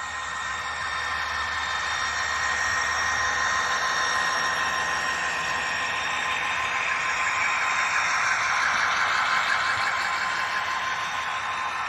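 Model railway diesel locomotive running past close by: a steady whirring, rolling noise of its motor and wheels on the track, fading in over the first couple of seconds and loudest as it passes, with a few faint steady high tones beneath.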